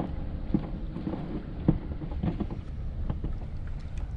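Wind rumbling on the microphone out on open water, with a few light knocks and taps; the sharpest comes about one and a half seconds in.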